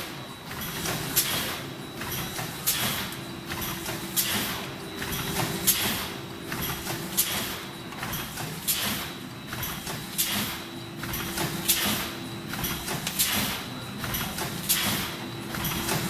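Double-lane horizontal form-fill-seal pouch packing machine running in production. Its mechanism cycles with a repeating clack and hiss of air about every one and a half seconds, with lighter clicks between, over a steady hum.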